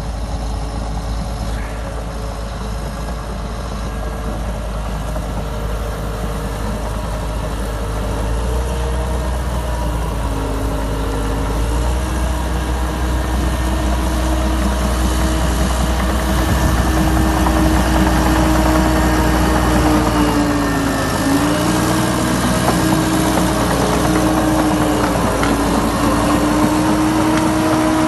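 Diesel engine of a Liebherr PR 736 hydrostatic crawler dozer running under load while pushing topsoil. The engine note shifts in pitch, dipping briefly about two-thirds of the way through and then recovering.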